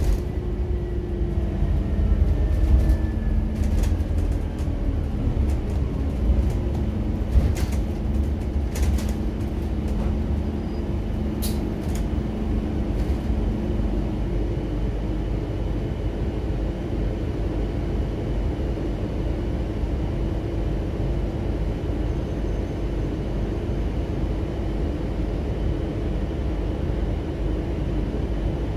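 Inside the cabin of a Scania N280UD biogas bus: the engine and drivetrain drone as it pulls along, the engine note shifting over the first 14 seconds, with a few sharp knocks and rattles in the first ten seconds. After that it runs on at a steady cruising note.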